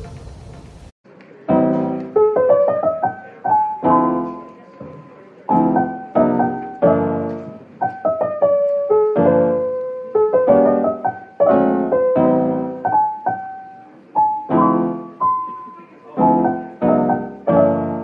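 Background piano music: a gentle melody of struck single notes and small chords, each ringing and fading, starting about a second in after a brief break.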